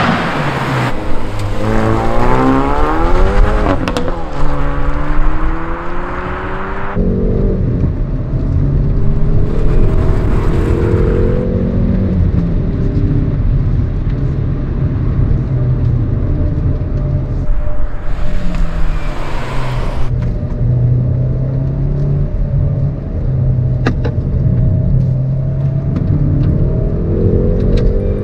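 Hyundai i30 N Fastback's turbocharged 2.0-litre four-cylinder engine accelerating hard, the revs rising in long sweeps and dropping back at gear changes. A few sharp exhaust pops are heard in between.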